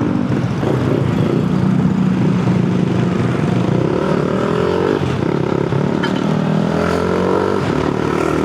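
Honda Grom's 125 cc single-cylinder engine pulling while riding: the engine note climbs, drops about five seconds in as a gear is shifted, and climbs again.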